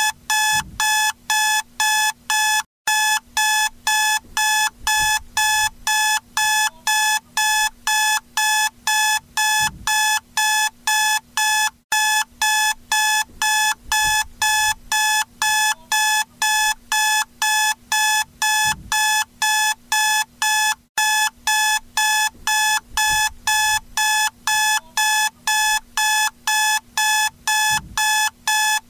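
Electronic alarm clock beeping: a rapid, even train of high-pitched beeps, about three a second, with a short break roughly every nine seconds. It is the wake-up signal at the end of a timed nap.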